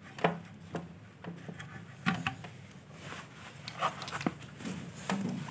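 Scattered light clicks and taps of wiring and a small circuit board being handled inside an opened CRT television chassis.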